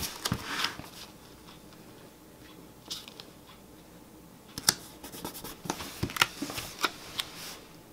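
Paper planner stickers handled by hand: light crinkles, taps and scrapes as strips are lifted, positioned and pressed onto the planner page. The sounds come in short clusters: at the start, about three seconds in, and a busier run from about five to seven and a half seconds.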